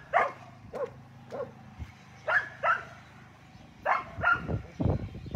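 A dog barking: about seven short barks that drop in pitch, some coming in quick pairs. A low rumbling noise starts near the end.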